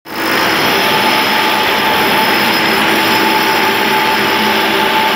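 Electric hammer drill boring into a concrete beam, running steadily at full power, with a constant whine over the grinding noise.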